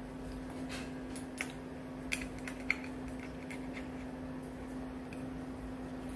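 Metal chopsticks clicking and clinking against hard clam shells and a ceramic bowl as clam meat is picked out: about half a dozen light, sharp clicks scattered through the first three seconds, a few more later, over a steady low hum.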